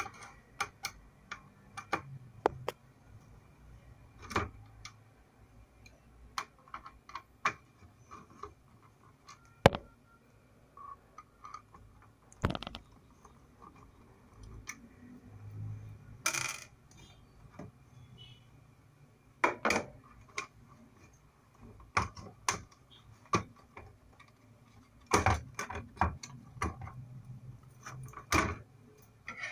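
Irregular clicks, clinks and scrapes of a screwdriver, loose screws and metal and plastic parts being handled, as the copper induction coil of an opened induction cooktop is unscrewed and lifted out.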